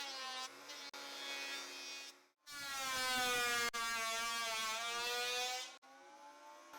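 Electric woodworking power tool's motor running with a steady pitched hum. It is quieter at first, drops out briefly about two seconds in, returns louder with its pitch drifting a little, and cuts off sharply near the end.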